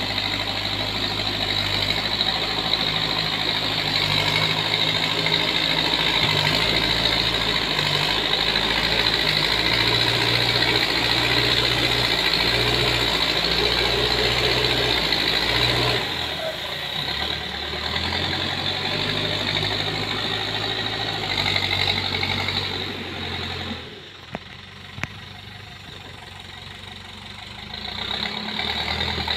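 Diesel engine of a backhoe loader running under load as its front bucket pushes dirt along the road. The engine note shifts partway through, then drops and goes quieter for a few seconds, with a couple of sharp clicks, before picking up again near the end.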